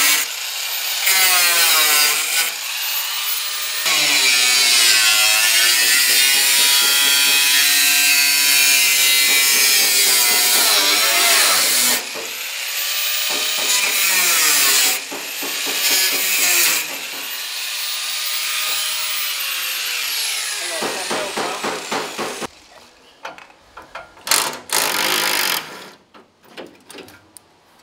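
Angle grinder with a cutting disc cutting through a car's steel front wing: a loud whine whose pitch sags and recovers as the disc bites, stopping and spinning back up several times. For the last few seconds the grinder is off, leaving a few metallic knocks and clicks.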